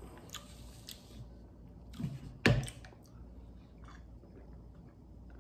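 Drinking from a plastic shaker bottle: a few small clicks as it is handled, and a sharp plastic clack about two and a half seconds in, followed by quiet mouth and swallowing sounds.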